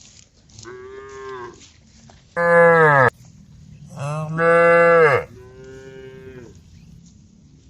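Cows mooing, calling to the herd: four moos, the two in the middle loud and lower-pitched, the first and last fainter and higher, each sagging in pitch at the end.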